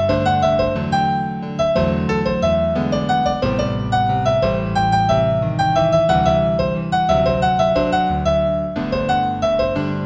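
Solo piano playing a piece in G major at a moderate tempo of about 90 beats a minute: a repeated higher note and short melodic figures over held bass chords.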